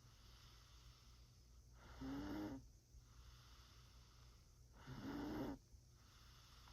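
Snoring: two short, rasping snores about three seconds apart, in a slow, regular breathing rhythm.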